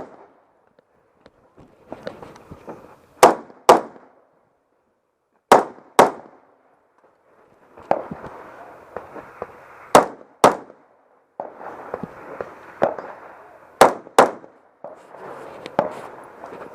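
Rifle shots, four times, each followed about half a second later by the clang of the bullet hitting a steel target. Between the shots there is a low hiss.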